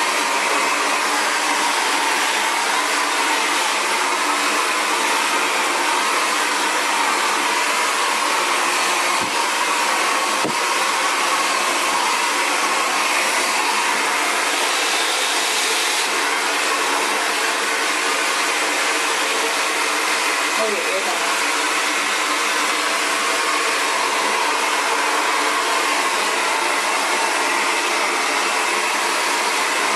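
Xtava Allure 2200-watt ionic ceramic hair dryer running steadily at one speed, a constant blowing whir.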